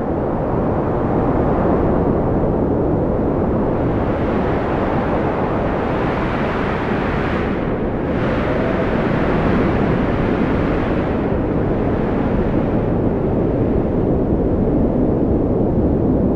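Strong wind blowing steadily, a dense low rushing with a faint wavering howl through it.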